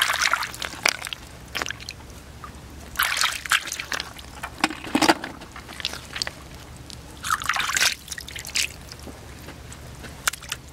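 Shallow water sloshing and trickling in irregular bursts every couple of seconds, with small clicks between: hands working through water and mud while catching snails and crabs. A steady low hum runs underneath.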